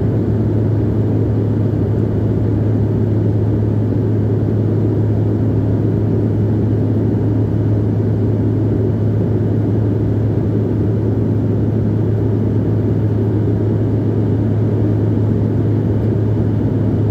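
Cabin noise inside a Bombardier CRJ-700 regional jet in flight: a steady drone of the jet engines and the airflow, with a strong, constant low hum.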